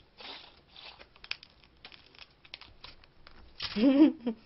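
Meat being sucked out of a cooked snow crab leg with a short slurp, then small clicks of crab shell and crab fork. Near the end, a brief wavering vocal sound from the eater, the loudest thing heard.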